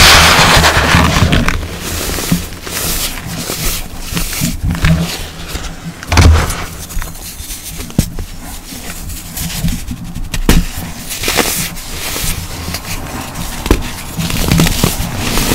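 Hands squeezing, pressing and crumbling packed baking soda: soft crunching and powdery crumbling, with a loud burst at the start, another about six seconds in, and a few sharp snaps as compacted lumps break apart later on.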